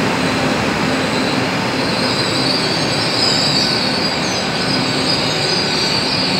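Great Western Railway Class 800 train (800005) rolling past close by as it draws into the platform, a steady rumble of wheels on rail with a high squeal that comes in about two seconds in and holds.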